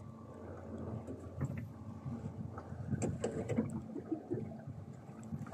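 A boat's engine running steadily, with a cluster of clicks and knocks about three seconds in.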